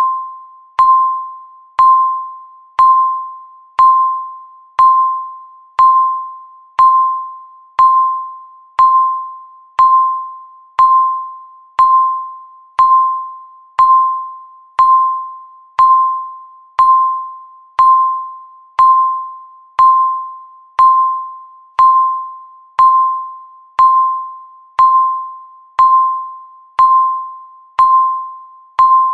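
Countdown timer beeping once a second: each beep a single electronic tone that starts with a click and fades away before the next.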